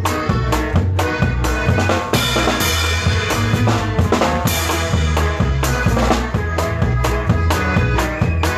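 Band music with no singing: a drum kit keeps a steady dance beat with bass drum and snare hits, under bass and held melody notes.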